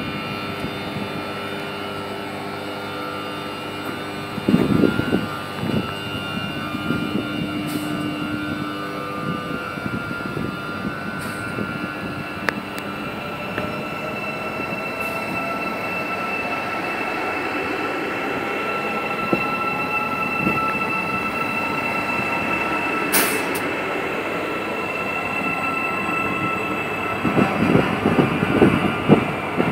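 Hyundai Rotem HRCS2 electric train moving past along a platform: the wheels run on the rails and steady high whines carry throughout, with one whine slowly rising in pitch through the middle. There are louder rumbling bursts a few seconds in and again near the end.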